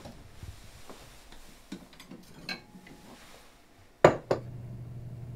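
Dishes and other kitchenware clinking and knocking lightly as they are handled on a kitchen counter, then one loud sharp knock about four seconds in, followed by a steady low hum.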